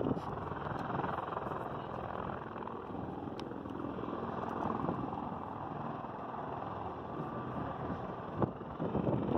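Sikorsky CH-53E Super Stallion's turboshaft engines running steadily while the helicopter sits on the ground, heard from far off. Wind gusts hit the microphone near the end.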